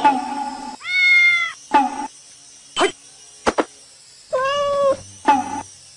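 Baby macaque giving two short arched coo calls, one about a second in and another past the middle, with brief snatches of a steady electronic tone and a single sharp click between them.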